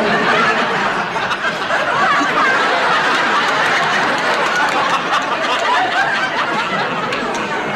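Studio audience laughing loudly, breaking out all at once and carrying on steadily without a pause.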